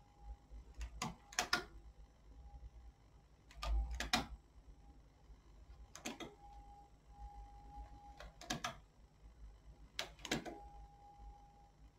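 Knitting needles clicking together as stitches are worked, a quick pair of light clicks every two seconds or so.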